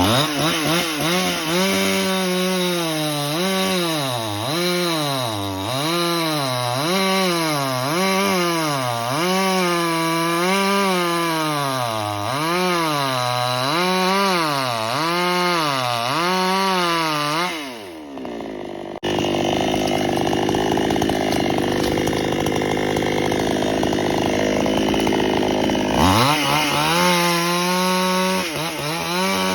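Chainsaw cutting wood, its engine pitch swinging up and down about once a second as the chain bites and frees. About two-thirds through the note sags and breaks off, followed by a rougher, steadier stretch. Near the end the saw revs up sharply again and holds.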